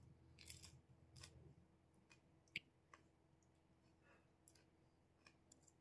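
Near silence with faint, scattered clicks and crackles of someone eating fuchka: crisp puffed puri shells crunching and mouth sounds while chewing.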